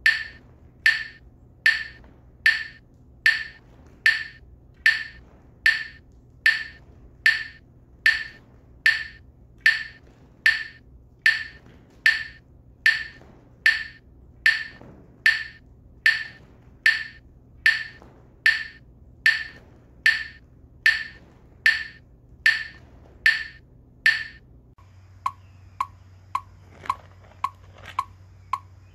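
Metronome clicking steadily, a little over once a second. Near the end a fainter, lower-pitched click takes over at a quicker pace of about two a second, over a low steady hum.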